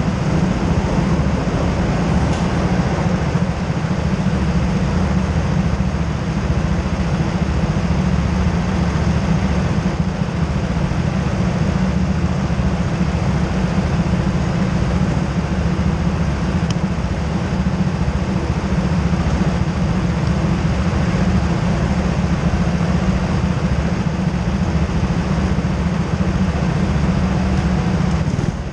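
Go-kart engines idling together on the starting grid: a steady, continuous low drone.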